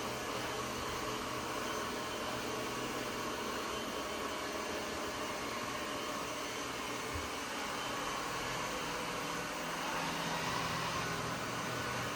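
Ecovacs Deebot N8 Pro+ robot vacuum running with a steady motor hum and hiss.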